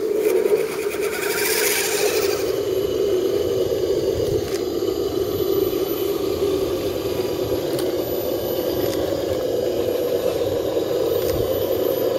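Electric RC scale crawler trucks running, their motors and gear drivetrains whining steadily as they crawl over dirt and roots, with a higher rising whine in the first two seconds.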